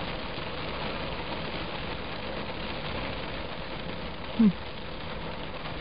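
Heavy rain falling steadily, an even hiss with no thunder, and a brief low 'mm' from a person about three quarters of the way through.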